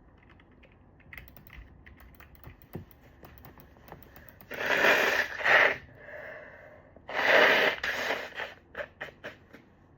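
Stifled sneezes brought on by chhinkni, a sneeze-inducing herb snuff. Small sniffs and catches of breath come first, then a loud stifled sneeze about four and a half seconds in and another about seven seconds in, followed by a few short sniffs.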